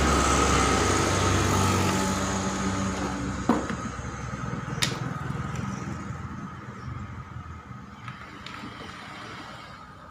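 A motor vehicle's engine running steadily, its sound fading slowly away over several seconds. There are a couple of sharp clicks from packaging being handled, about three and a half and about five seconds in.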